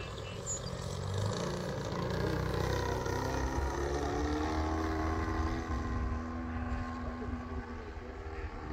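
120-inch radio-controlled Bushmaster model airplane flying past, the motor and propeller droning steadily. It grows louder as it passes, then fades and drops slightly in pitch as it climbs away.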